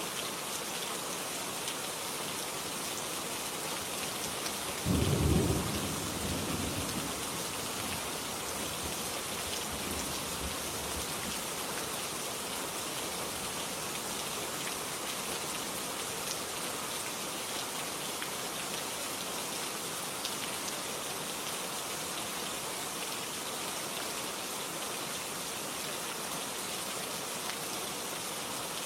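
Steady rain, with a single clap of thunder about five seconds in that rumbles away over a couple of seconds.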